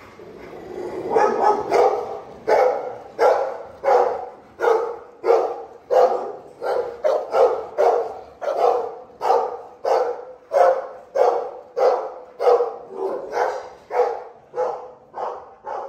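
A dog barking steadily and repeatedly, about three short barks every two seconds.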